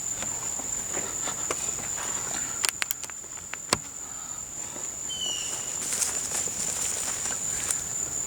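A steady, high-pitched insect trill, like crickets, with a few sharp clicks and knocks about three seconds in and a brief high chirp around five seconds.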